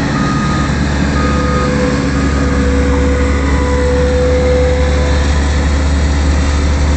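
A vehicle's reversing beeper sounding about once a second for the first couple of seconds, over a steady low rumble and the hiss of heavy rain on flood water.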